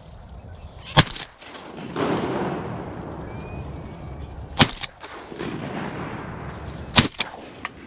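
Three shotgun blasts about three seconds apart, fired at a flock of wood ducks coming into the decoys, with a burst of rushing noise after the first.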